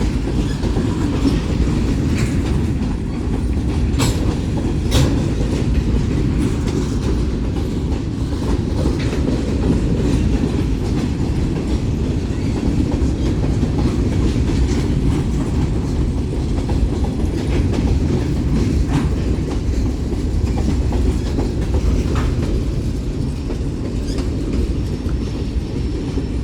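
Freight cars of a BNSF manifest train rolling past: a steady rumble of steel wheels on the rails with a clickety-clack over the rail joints and an occasional sharp clank.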